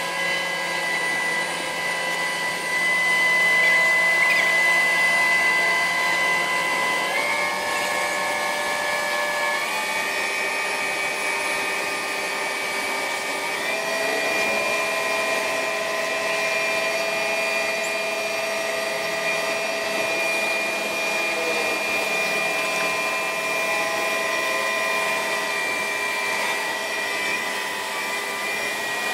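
Sped-up audio of a mobile crane's engine running under load while it lifts and swings a houseboat. It sounds as a steady mechanical whine that steps up to a new pitch about 7, 10 and 14 seconds in.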